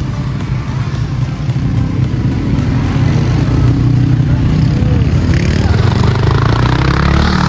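Motorcycle engine running steadily, growing a little louder about two seconds in.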